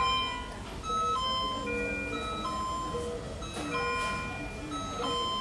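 Overlapping electronic alarm tones from NICU patient-monitoring equipment: several steady beeps at different pitches, each held about half a second to a second, repeating in staggered patterns.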